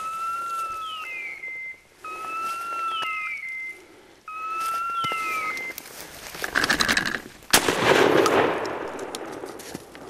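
A repeating electronic call, a held tone topped by a falling chirp, sounds about every two seconds, four times, typical of a pointing dog's beeper collar signalling a point. After a loud rustle, a single shotgun shot cracks about seven and a half seconds in and dies away.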